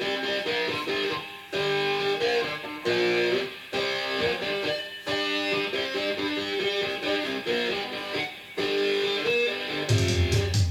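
Guitar-led music played back from a cassette on an Akai GXC-39D stereo cassette deck. Melodic guitar lines run with brief gaps between phrases, and near the end a fuller, louder section with deep bass comes in.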